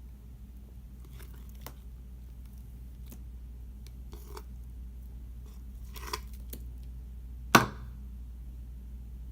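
Small handling noises: scattered soft clicks and rustles over a steady low hum, with one sharp click about seven and a half seconds in.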